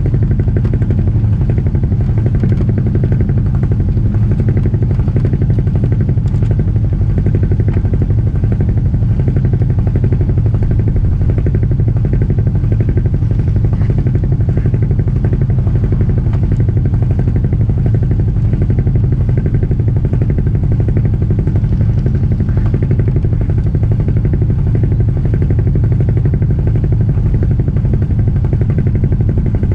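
Albin Vega sailboat's auxiliary engine running steadily at a constant speed, a loud, even drone.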